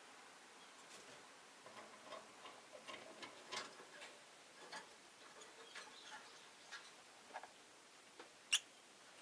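Rosy-faced lovebirds in a cage: scattered faint ticks and soft short chirps at irregular intervals, with one sharp high chirp near the end.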